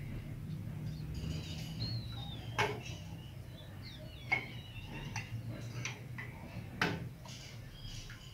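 A metal ladle knocking against a blue enamel pot and a mug while hot atole is ladled into the mug: a few sharp clinks, three louder ones spaced a couple of seconds apart. Birds chirp briefly in the background.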